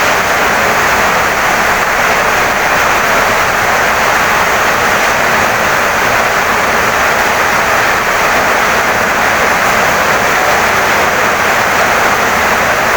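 Heavy rain pouring down steadily on a wooden house, a dense, even hiss with no breaks.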